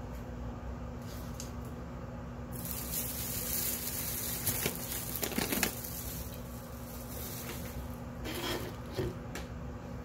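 Water running from a kitchen tap: a steady rushing hiss for about five seconds that stops near the end, with a few light knocks partway through.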